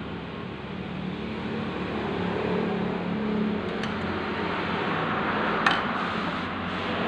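Steady mechanical hum and running noise, growing slightly louder, with one sharp click about five and a half seconds in.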